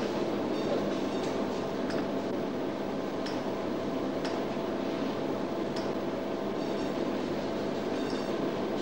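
Steady rumble and hum of missile-guidance cabin equipment, with a faint steady tone. Sharp ticks and short high blips come at irregular intervals, about one a second.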